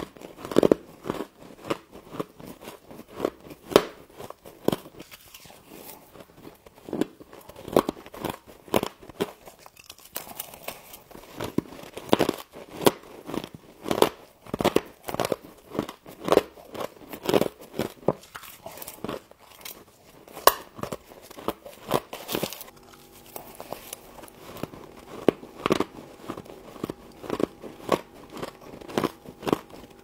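Mouthfuls of frost being bitten and chewed close to the microphone: a run of loud crunches, about two a second. About two-thirds of the way in, a faint steady hum joins underneath.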